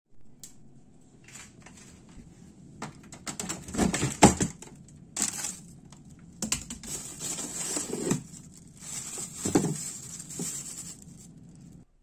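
Plastic freezer bags of frozen food crinkling and rustling as they are handled in a freezer drawer, in irregular bursts, loudest about four seconds in.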